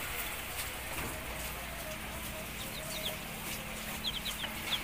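Young Rhode Island Red and native chicken chicks peeping in a brooder: short, high, falling cheeps, scattered at first and then several in quick succession about four seconds in.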